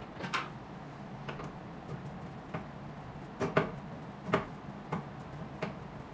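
Screws being worked out of a machine's plastic side casing by hand: irregular sharp clicks and taps, two of them louder about three and a half and four and a half seconds in, over a steady low hum.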